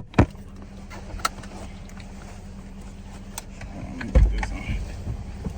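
Car running, heard with a steady low hum, a few light clicks, and a low thump about four seconds in.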